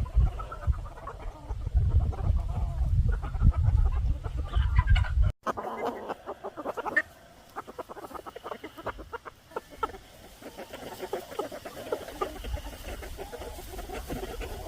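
Chickens clucking, many short calls overlapping. A heavy low rumble lies under them for the first five seconds and stops abruptly.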